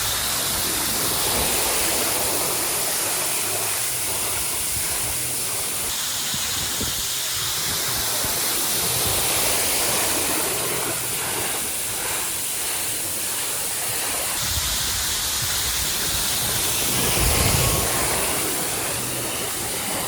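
Steady hiss of rushing, splashing water, with no distinct events and the tone shifting slightly a couple of times.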